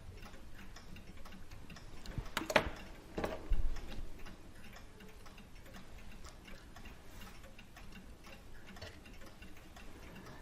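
Steady, faint ticking of a clock throughout, with a few sharp metallic clicks about two and a half and three and a half seconds in as the hammer lifting piece is worked off its linkage on a Hermle clock movement.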